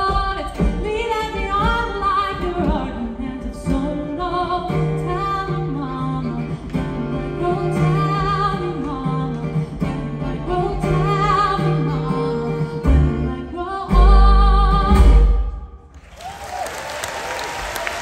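A live acoustic band, with a female lead singer over fiddle, upright bass and acoustic guitar, sings the closing lines of a song. The song ends on a loud, low final note about fifteen seconds in. Audience applause breaks out in the last two seconds.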